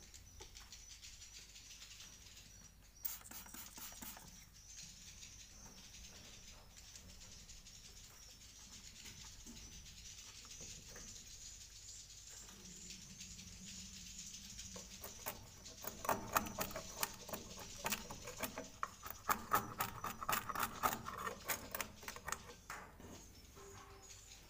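Edible-nest swiftlets twittering faintly and steadily in a swiftlet house. A bit past halfway comes a dense run of rapid, sharp clicks lasting several seconds.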